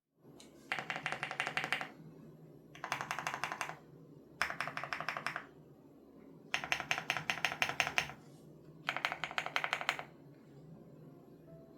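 Typing on a Crush80 Reboot mechanical keyboard with HMX Hyacinth switches: five quick runs of keystrokes, each a second or so long, separated by short pauses.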